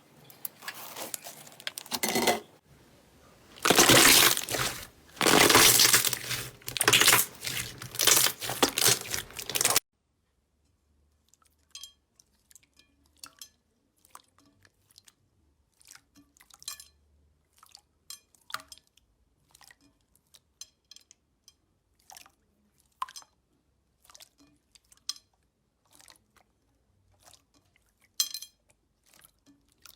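Slime being pressed and handled: dense crackling for about ten seconds, then it changes abruptly to sparse small clicks and pops.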